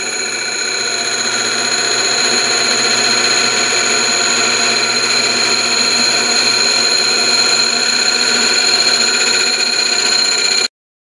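Metal lathe taking a facing cut across a cast metal disc, the cutting tool squealing with a steady high-pitched ring of several held tones over the cutting noise. It cuts off suddenly near the end.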